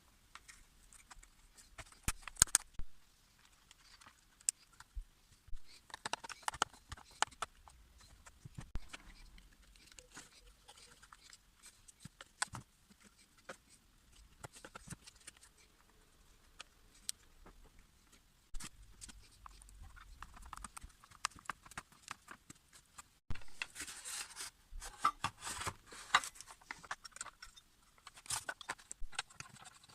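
Scattered sharp clicks and knocks with two short spells of scraping and rustling, about six seconds in and again near the end: hand tools and parts being handled during work on a power cutter.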